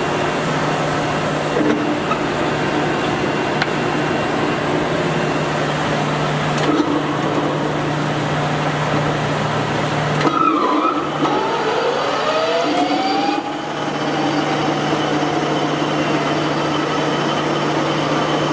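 Polamco engine lathe running with a steady low hum from its motor and headstock gearing. About ten seconds in, the sound dips as the spindle lever is thrown, then a whine rises in pitch over a couple of seconds as the spindle comes up to speed and settles back into the steady hum.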